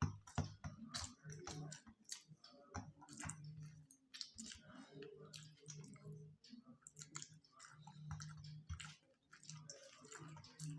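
Close-miked eating by hand: soft chewing and quick small clicks of fingers mixing rice on steel plates. A faint low hum comes and goes underneath.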